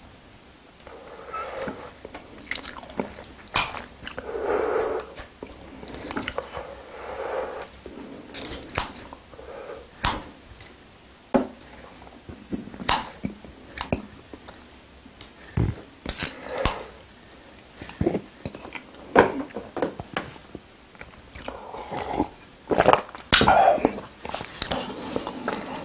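Close-miked chewing of spicy braised seafood: wet mouth sounds and munching, broken by frequent sharp clicks and crunches at irregular intervals.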